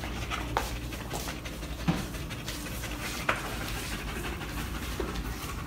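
A tired dog panting steadily, with a few faint clicks.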